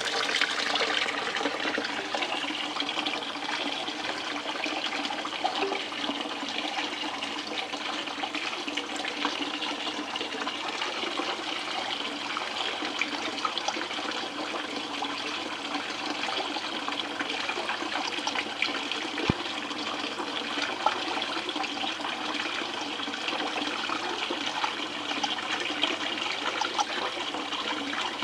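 Steady running and trickling water flowing over a DIY Miller table as the first scoop of concentrates washes across it, with one sharp click about two-thirds of the way through.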